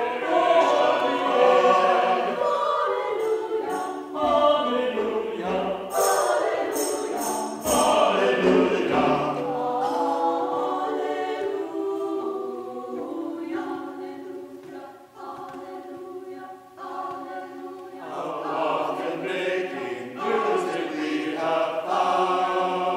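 Mixed choir singing a hymn, the sustained voices swelling and fading, with a softer passage a little past the middle before the voices rise again.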